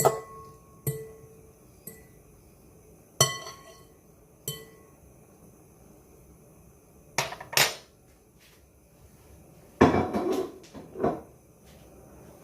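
A metal utensil knocking and clinking against a pot or pan. Five sharp knocks in the first five seconds each leave a brief ring. Later come two duller knocks and a longer clattering scrape.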